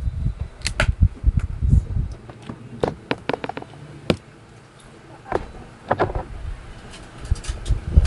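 Irregular sharp clicks and knocks, with low thumps in the first two seconds.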